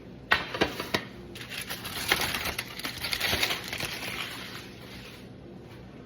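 A few quick clicks or knocks about half a second in, then crinkling and rustling for about four seconds as a crinkly material is handled.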